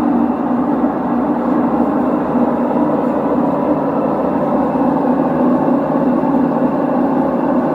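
LG direct-drive automatic washing machine running, a loud steady hum.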